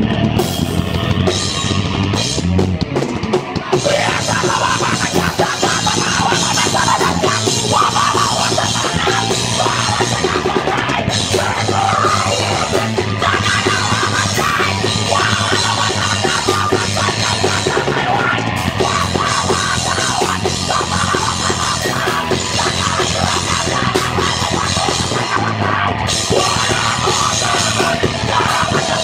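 Heavy rock band playing live, loud and dense, driven by a drum kit. The first few seconds are choppy, stop-start hits, then the full band plays on without a break.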